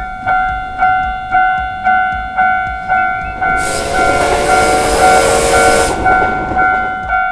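Japanese railroad crossing alarm ringing its repeated "kan kan" chime, about two strikes a second. A train rushes past for a couple of seconds in the middle, a broad noise over the alarm.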